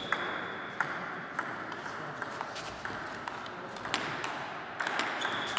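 Table tennis ball bouncing: sharp, separate clicks at irregular spacing, roughly one every half second to a second, between points.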